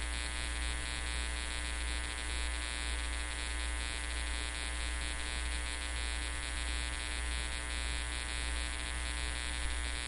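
Steady electrical mains hum with a buzzing edge. It is even and unchanging, with no other sound over it.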